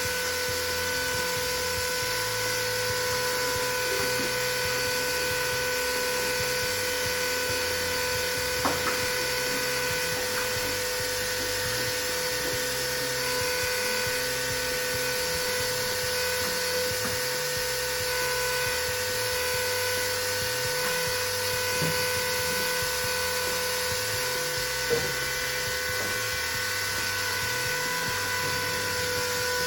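Small electric pump motor running steadily with a constant whine, pumping RV antifreeze ballast into a tractor tire. Two light knocks come partway through.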